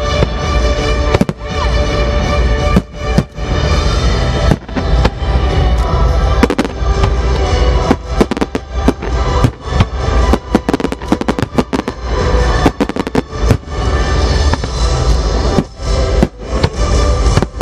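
Aerial firework shells bursting one after another in a dense barrage of bangs and crackles, over loud music.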